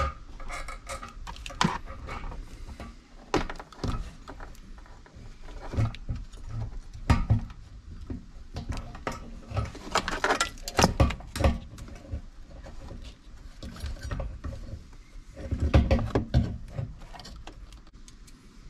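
Fuel pump hanger assembly being handled and lowered into a car's fuel tank: irregular clicks, rattles and knocks of plastic and metal parts and corrugated wiring loom, with a few heavier knocks as it is seated in the tank opening.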